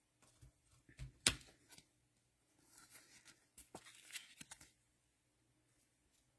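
Faint handling of trading cards and their cellophane pack wrapper: a few sharp taps about a second in, then a soft rustling, tearing sound that stops before the end.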